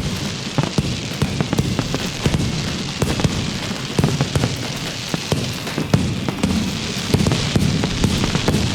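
Fireworks and firecrackers going off without pause: a dense crackle of many sharp pops over a steady low rumble.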